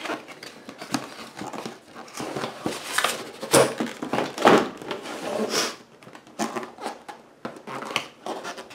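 Unboxing packaging being handled: irregular rustles, clicks and knocks of cardboard and plastic, busiest around the middle.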